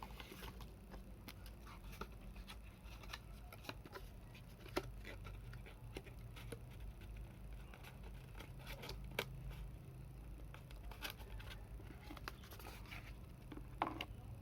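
Faint scattered clicks, taps and light scraping of hand work on a laptop's small plastic and metal parts, over a low steady hum. Three sharper clicks stand out, the sharpest near the end.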